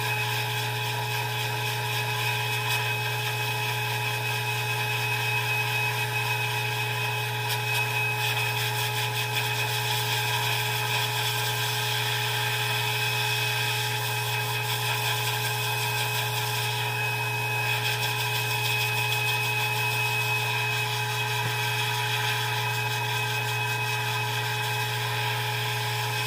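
High-velocity dog force dryer running steadily, a motor whine with several steady tones over rushing air, as its flat nozzle blows loose undercoat out of a wet double coat.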